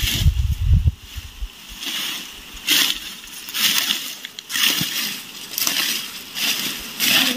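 Footsteps crunching and rustling through dry, cut grass stalks, a rustle about once a second, with a few low thumps in the first second.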